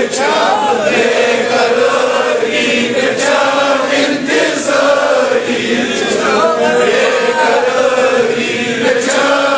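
A group of men chanting a devotional dhikr together, many voices overlapping in one continuous wavering chant.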